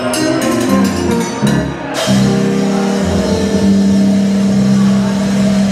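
Live jug band music with guitars, bass and light percussion. A quick rhythmic passage with clicking percussion runs for about two seconds, then the band strikes a full chord and holds it, ringing on steadily.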